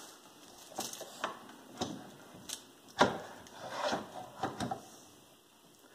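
Wooden base and wheels of a plush giraffe rocking toy knocking and rubbing as it is shifted by hand: a series of light knocks and scrapes, the sharpest about three seconds in.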